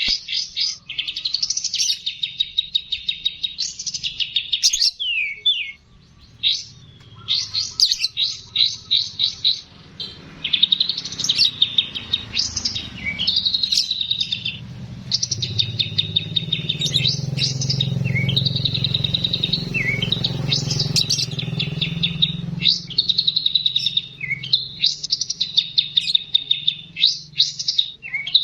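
Labet songbird singing long runs of rapid, high trills and chattering phrases, repeated with short breaks, as in a masteran tutor recording used to train other songbirds. A faint low hum rises under the song in the middle.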